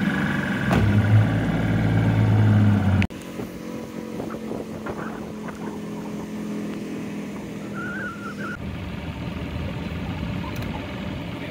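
Boat's outboard motor running under way, loud and steady at first, then dropping off suddenly about three seconds in to a quieter, steady engine drone.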